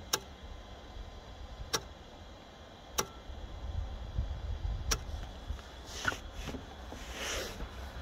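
Low steady rumble of a running car, with four sharp clicks spread over the first five seconds and a couple of brief scuffing noises near the end.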